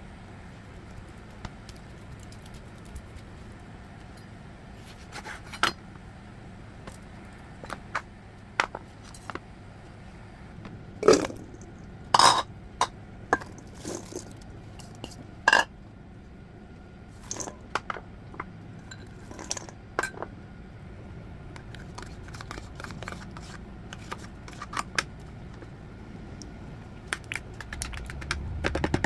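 Kitchen food-prep sounds over a steady low hum: bowls and utensils clink and knock now and then, loudest in a cluster about eleven to twelve seconds in and once more a few seconds later, with diced apple tumbling into a steel mixing bowl about halfway through. Near the end a spoon clicks quickly against a bowl, stirring cream.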